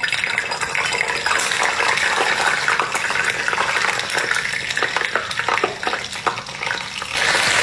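Hot oil sizzling and crackling as green caterpillars deep-fry, starting suddenly and then steady with many small pops.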